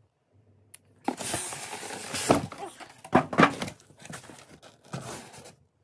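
Packaging being handled as a compact twin-tub washing machine is unboxed: rustling and scraping of cardboard, styrofoam inserts and plastic wrap. It starts about a second in, with a few louder scrapes or knocks around the middle.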